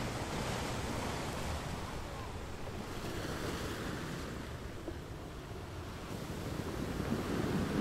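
Wind buffeting the microphone over the steady wash of the sea, growing a little louder near the end.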